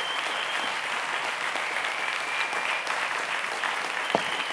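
Audience applauding steadily at the end of a talk.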